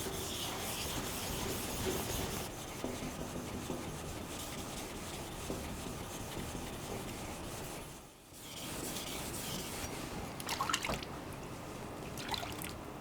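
Sakai Takayuki tall bunka kitchen knife being stroked over a wet 3000-grit whetstone: a steady wet scraping, with a short pause about eight seconds in.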